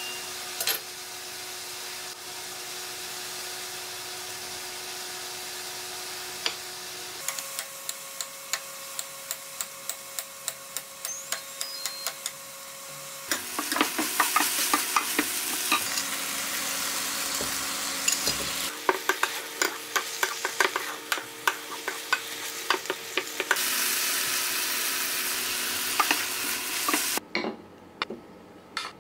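Chicken and vegetables sizzling in a nonstick frying pan as they are stir-fried, with a steady frying hiss and many short clicks and scrapes of the spatula against the pan. Near the end the sizzle stops, leaving a few soft knocks as the food is tipped onto plates.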